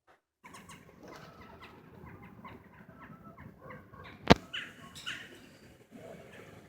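Birds chirping over a low background rumble, with one sharp loud click about four seconds in.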